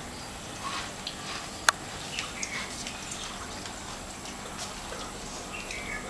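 Steady aquarium water noise from the filter and circulation, with scattered small drips and ticks and one sharp click just under two seconds in.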